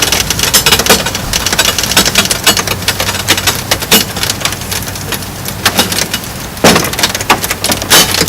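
Popcorn popping: a dense run of irregular pops and crackles, with a few louder single pops about four seconds in, near seven seconds and near the end.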